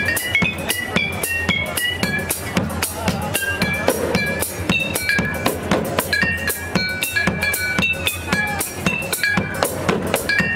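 A drum kit played live in a fast, steady beat, with bass drum and snare strokes, while a high melody of short notes runs over it.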